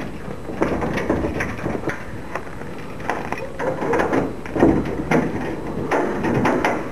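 Keys being worked in the lock of a sheet-steel garage door: irregular metallic clicks, scrapes and knocks against the door.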